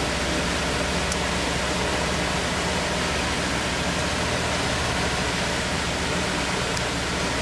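Motorboat cruising: a steady rush of wind and water over the hull, with the low, even drone of its MerCruiser 4.3 V6 sterndrive engine underneath.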